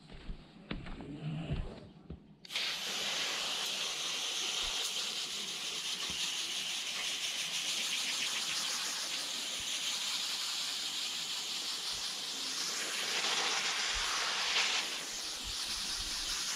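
Garden hose spray wand spraying water onto an RV rooftop air conditioner's condenser coils, rinsing off coil cleaner: a steady hiss that starts about two and a half seconds in, a little louder for a stretch near the end.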